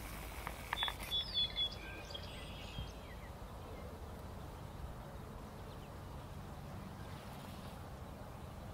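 Faint woodland ambience: a few short bird chirps in the first three seconds, then only a low, steady background hiss.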